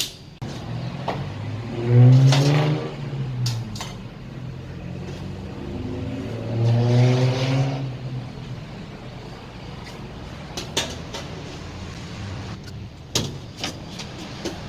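A small electric motor spins up in two short bursts, rising in pitch each time, over a steady low hum, with sharp clicks and knocks of parts being handled between and after the bursts.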